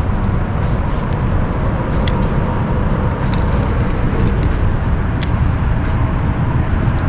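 Steady low rumble of wind buffeting the microphone, with a couple of faint clicks about two and five seconds in.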